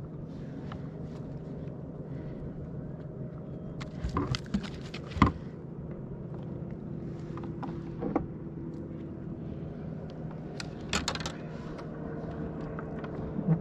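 Boat motor running steadily at trolling speed, a low even hum, with a few sharp knocks and clicks about four to five seconds in, around eight seconds and again near eleven seconds.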